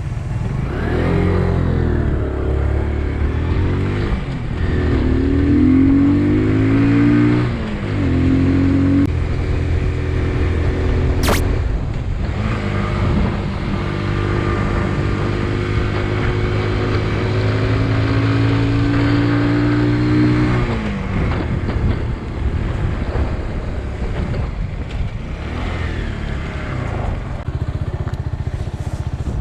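Motorcycle engine under way. It revs up and shifts through several gears in the first eight seconds, holds a steady pitch until about two-thirds through, then drops away as the throttle closes. There is one sharp click near the middle.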